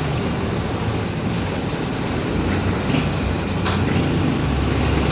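A Mercedes-Benz OF-1721 BlueTec 5 city bus on the move, heard from inside: the diesel engine runs steadily under road and body noise. This is a bus noted for a growling differential. A short rattle comes near the end.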